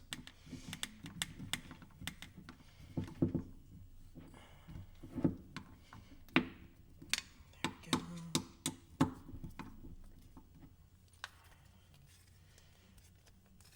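Irregular clicks and knocks of small metal parts and an Allen key being handled: screws, lock washers and hub pieces fitted during wheel reassembly. The knocks are busiest in the middle and die away after about ten seconds, with one last click a little later.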